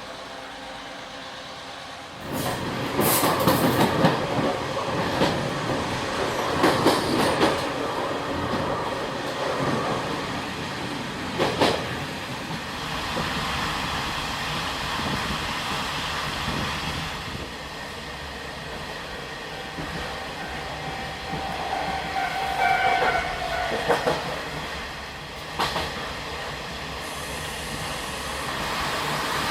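Railway train running on the track, loud and clattering, with several sharp knocks and a brief high tone near the end.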